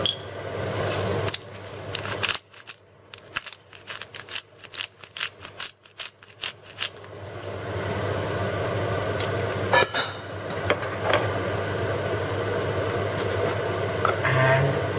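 A pepper mill grinding black pepper into a saucepan of white sauce: a quick run of short dry clicks for about four seconds, over a steady low hum, with a couple of single knocks later on.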